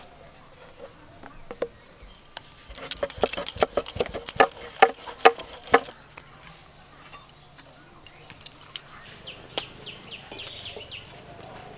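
Hands working rice-flour roti dough, with bangles clinking: a dense run of sharp clicks and clinks for a few seconds, then quieter, with faint chirping near the end.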